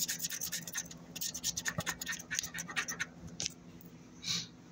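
Scratch-off lottery ticket being scratched: quick, repeated scraping strokes on the ticket's coating, several a second. They stop about three and a half seconds in, and a brief soft rustle follows near the end.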